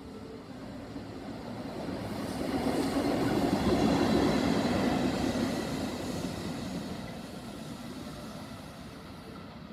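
JNR/JR EF65 PF electric locomotive running light through a station with no train behind it. The rumble swells as it approaches, peaks as it passes about four seconds in, then fades as it draws away.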